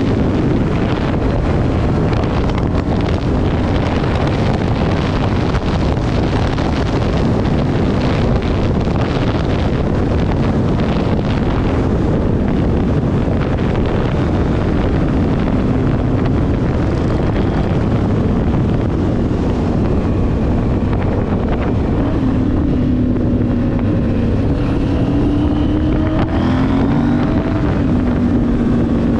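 Motorcycle engines running under heavy wind noise on the microphone. The engine note rises and falls several times in the last third.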